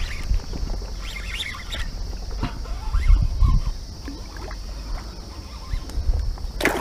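Rustling and movement noise as the angler shifts about in the tall bankside grass with the rod, over a low rumble of wind and handling on the microphone and a steady high-pitched hum. A louder burst of rustling begins near the end.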